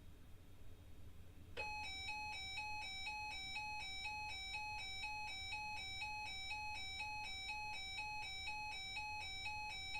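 NOAA weather radio receiver sounding its alert alarm, a beeping tone that switches rapidly back and forth between two pitches, starting about a second and a half in. It signals an incoming weather alert. A faint low hum lies under it.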